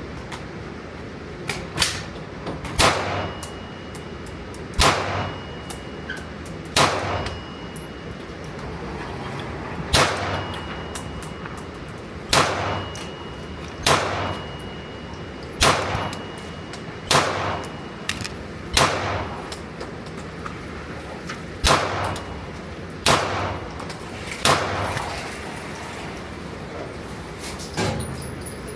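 A handgun fired one round at a time, over a dozen sharp shots spaced about one and a half to three seconds apart, each with a short ringing echo. A few fainter shots fall in between.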